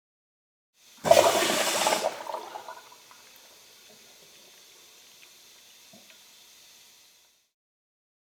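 A locker room toilet flushing: a sudden loud rush of water about a second in that dies down over a couple of seconds, then a quieter trickle that stops about seven seconds in.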